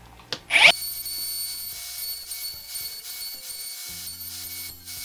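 HiKOKI cordless router switched on with a click, its motor spinning up with a fast rising whine, then running at full speed with a steady high whine. From about four seconds in it cuts dovetails in wood through a dovetail jig's template.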